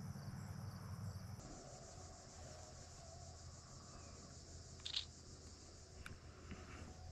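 Faint, steady chirping of crickets and other insects, with a single sharp click just before five seconds in.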